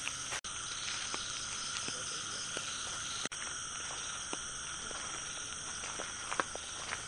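Night chorus of insects and frogs calling steadily, with many faint short ticks scattered through it. The sound cuts out for an instant twice.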